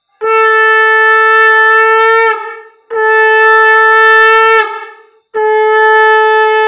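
Conch shell (shankha) blown in three long, steady blasts of about two seconds each, each dropping slightly in pitch as it ends, the third still sounding at the end. It is the conch call of the Bengali evening sandhya worship.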